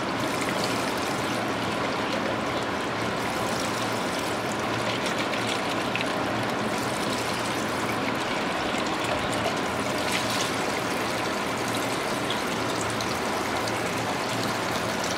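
Walton top-loading washing machine filling its drum, a steady stream of water pouring in and splashing onto the clothes.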